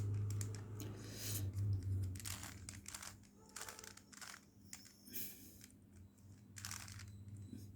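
3x3 Rubik's cube being turned by hand through a move sequence: a run of short plastic clicks and rasps at irregular intervals as the layers twist.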